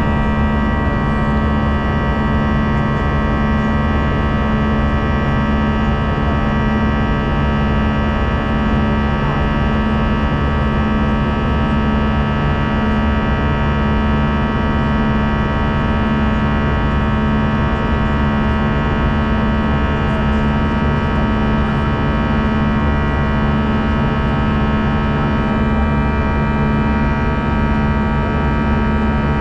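Jet airliner cabin noise in flight: the engines and airflow make a steady rush, with a strong low hum and several steady tones above it.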